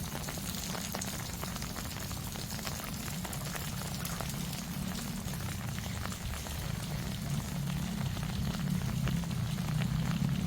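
Steady rain falling, with many small drops tapping close by. A low rumble grows louder over the last few seconds.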